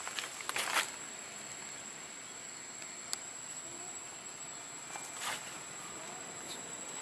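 Outdoor woodland ambience with a steady high-pitched insect drone, broken by a few brief rustling scuffs near the start and again about five seconds in.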